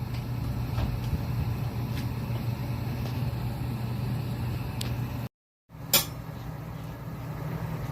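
Steady low mechanical hum, with a few faint clicks; the sound cuts out completely for a moment just past halfway and resumes with a sharp click.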